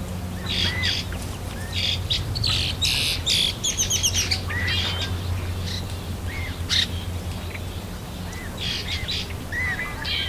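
Wetland birds calling: many short squawks and chirps, some in quick runs, over a steady low hum.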